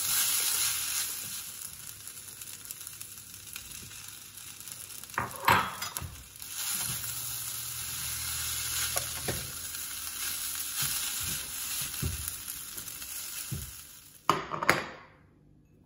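Shrimp curry fried rice sizzling in a stainless steel skillet while it is stirred and scraped around the pan with a spatula, a steady hiss with a few louder scrapes. Near the end come two sharp knocks, then the sizzle cuts off.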